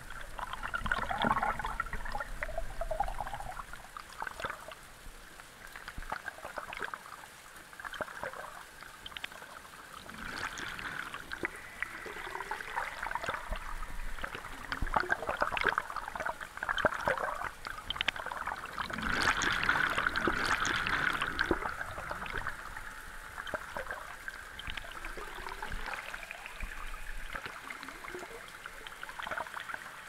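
Water trickling and splashing unevenly, louder a second or two in and again around twenty seconds in.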